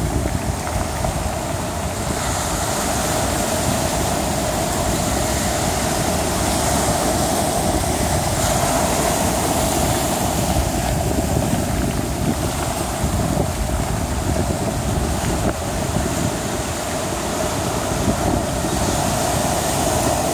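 Rough sea surf breaking and washing over a pebble beach, mixed with strong wind buffeting the microphone in a steady, dense rush of noise.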